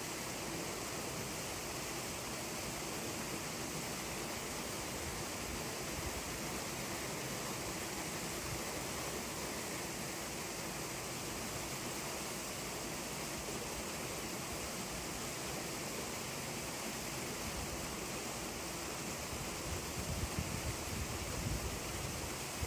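Steady outdoor rushing noise with no distinct events. Near the end, wind starts buffeting the microphone in low gusts.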